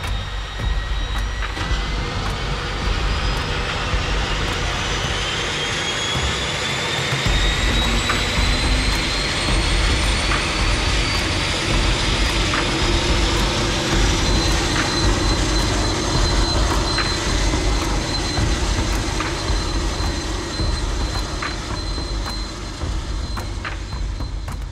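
Daher Kodiak 900's Pratt & Whitney PT6A-140A turboprop running. Its high turbine whine climbs slowly in pitch over the first half, then holds steady over a steady roar and low rumble.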